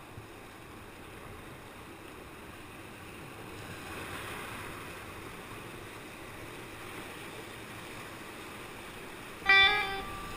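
Steady rush of whitewater rapids heard from a kayak, a little louder about four seconds in. Near the end, loud plucked guitar music comes in.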